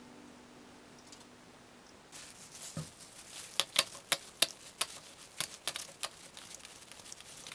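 Small steel bolts, nuts and washers clinking as gloved hands handle them and drop them into a small container: a run of irregular sharp clicks, starting about two and a half seconds in.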